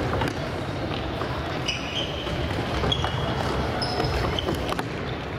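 Indoor futsal play on a wooden gym floor: several short, high sneaker squeaks as players cut and turn, and a few sharp knocks of the ball being kicked, over a haze of voices from around the hall.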